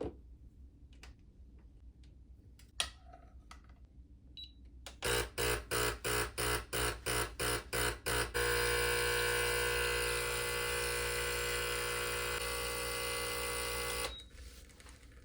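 HiBrew H10B espresso machine's 20-bar pump buzzing, first in short pulses about three or four a second for some three seconds, then running steadily for about six seconds before it stops, as it pulls an espresso shot. The pulses are the pre-brew stage before full extraction. A few faint clicks come before it.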